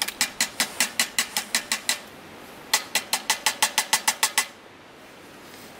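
Knife blade tapping rapidly on a metal samovar, about six or seven sharp metallic strikes a second, in two runs with a short break just after two seconds in. The tapping is an attempt to loosen a stuck part that will not open.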